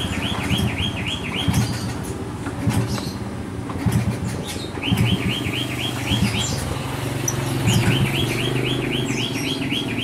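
A caged bird chirping in quick runs of about four or five notes a second, three runs with pauses between, with other short, higher bird calls scattered through. A steady low rumble runs underneath.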